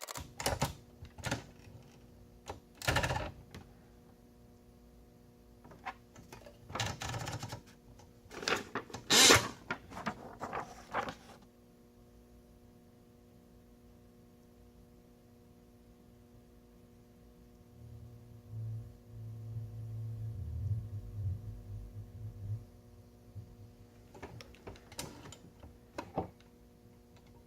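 Adler J2 manual portable typewriter being worked: scattered clusters of mechanical clacks and clicks, with a long quiet stretch in the middle. A low rumble follows that quiet stretch.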